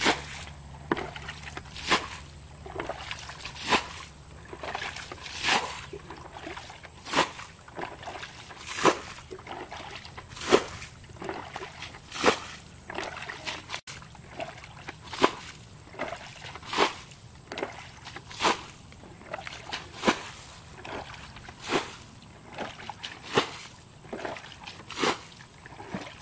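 Water being bailed out of a shallow muddy pond with a plastic bucket: a splash about every second and a half to two seconds as each bucketful is scooped and thrown out, with smaller sloshes in between.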